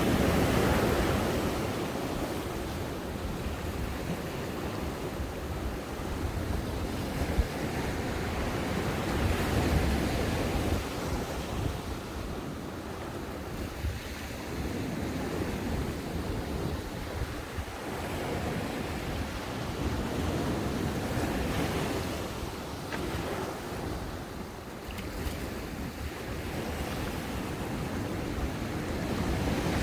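Ocean waves breaking and washing up a sandy beach, the surf swelling and easing every few seconds, with some wind rumble on the microphone.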